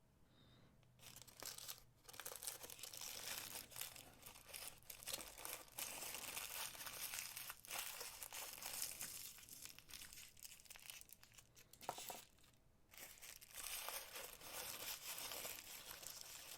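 Packing paper crinkling and tearing as a wrapped package is opened by hand. The rustling starts about a second in, with a brief pause near the end.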